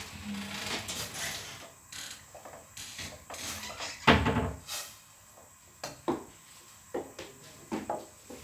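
Silicone spatula stirring liquid sugar syrup in a stainless steel pot with light scraping, then one loud knock about four seconds in, followed by a few light clicks and taps.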